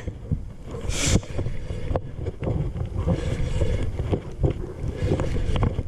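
Wind buffeting the microphone in a steady low rumble, with a short sharp hiss about a second in and scattered small clicks.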